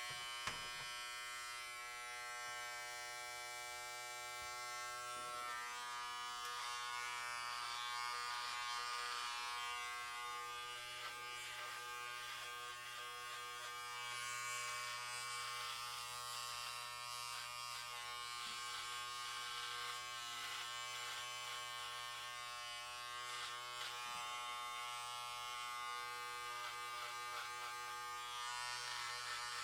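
Electric hair clippers running with a steady buzz while their blades cut hair, the cutting hiss rising and falling over the motor's drone, with a few small clicks.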